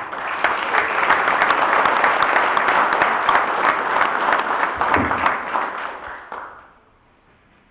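Audience applauding, a dense patter of many hands clapping that dies away about six and a half seconds in.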